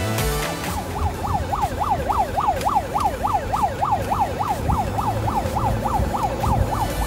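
Electronic siren in fast yelp mode, its pitch sweeping up and down about four times a second, starting under a second in and stopping just before the end, over a low rumble.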